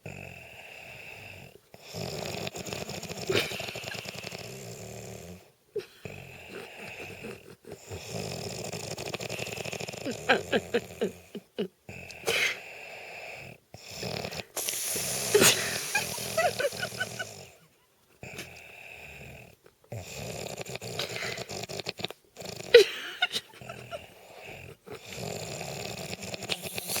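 A man snoring in his sleep: a run of rattling snores, one every two to four seconds.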